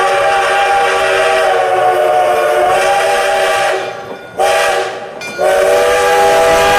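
Steam locomotive's chime whistle blowing: a long blast, a short one about four and a half seconds in, then another long blast near the end.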